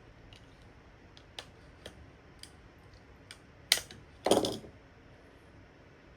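Light scattered clicks and taps of small workshop parts being handled, with a sharp click and a short rattling clatter about two-thirds of the way through.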